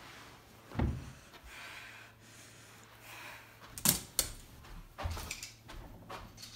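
A few scattered thumps and knocks, the sharpest a pair of quick clicks about four seconds in.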